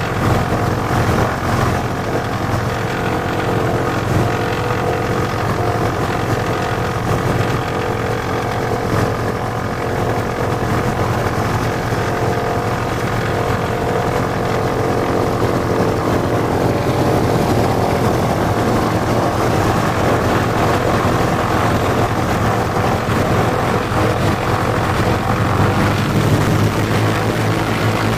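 Beechcraft C-45 Expeditor's twin Pratt & Whitney R-985 radial engines running steadily while the plane taxis, heard from inside the cockpit. The engine note shifts slightly near the end as the plane turns onto the runway.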